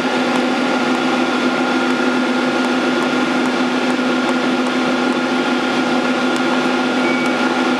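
Steady hum of running machinery with a constant low tone and a fainter high whine, with a few faint clicks of keypad buttons being pressed.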